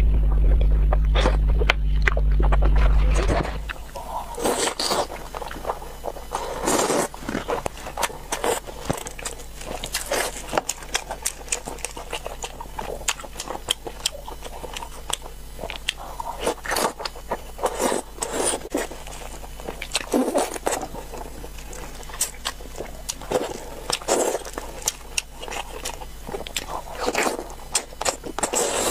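Close-miked eating sounds: wet chewing, smacking and biting into braised chicken drumsticks, full of small clicks and crackles. For the first few seconds a loud low hum lies under the eating, then it stops suddenly and the chewing goes on alone.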